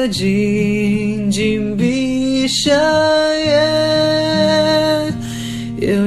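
Pop ballad sung live by a young male voice over acoustic guitar, with two long held notes.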